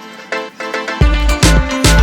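Background music with a beat. The bass and drums drop out for about a second, then come back in.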